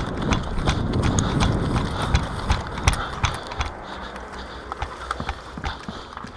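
Hurried footsteps with gear rattling and many sharp clicks and knocks, busiest in the first three seconds, then slowing and thinning out.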